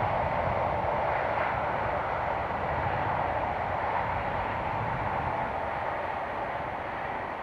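InterCity 125 High Speed Train with Class 43 diesel power cars running past, a steady rushing rumble of engines and wheels on rail that slowly fades as it draws away.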